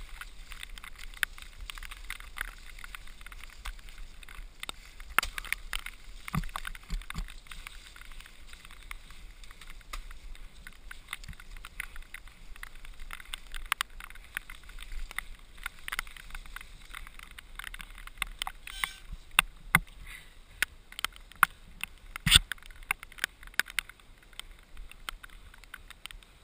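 Mountain bike riding down a rough dirt trail: a steady rolling hiss with frequent sharp clicks and knocks as the bike rattles over bumps, with a run of louder knocks about three quarters of the way through.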